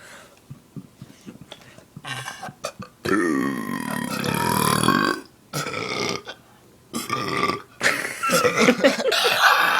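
Deliberate, loud human belching. A long pitched burp starts about three seconds in and lasts some two seconds, two shorter burps follow, and another long burp starts near the end.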